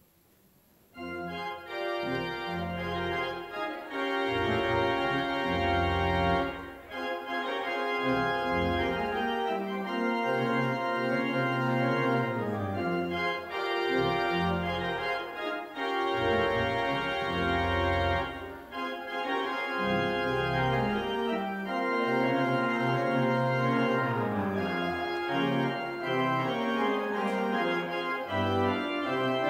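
Pipe organ playing sustained full chords over long, low pedal bass notes, starting about a second in.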